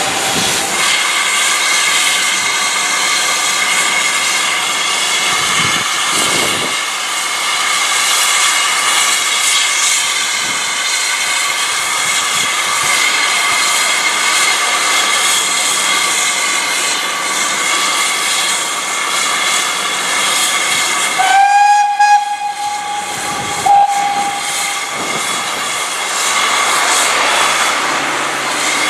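GWR steam locomotive standing with steam blowing off: a steady loud hiss with a ringing edge. About 21 seconds in its whistle sounds for about a second, then gives a shorter second toot two seconds later.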